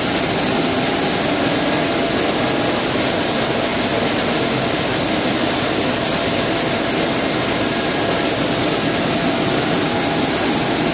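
LDPE blown film extrusion line running: a steady, loud machine noise with a faint constant tone, unchanging throughout.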